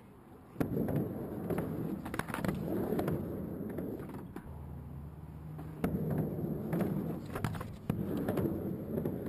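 Skateboard rolling back and forth on a mini ramp, its wheels running over the ramp surface, starting about half a second in, with several sharp clacks of the board.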